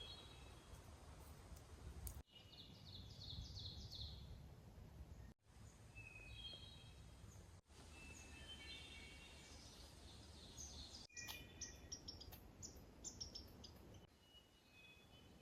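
Small songbirds singing in short, repeated chirping phrases over a faint low background rumble. The sound cuts out for an instant a few times.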